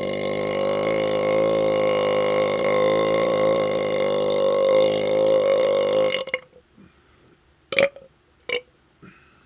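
A man's long, drawn-out burp of soda gas after chugging orange Fanta. It holds a steady pitch until it cuts off about six seconds in, followed by two short, sharp sounds less than a second apart.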